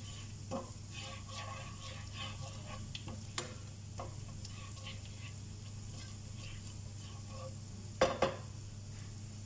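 Broccoli frying in butter in a wok, sizzling, as a spatula stirs and clinks against the pan. Two loud clacks of the spatula on the wok come about eight seconds in, over a steady low hum.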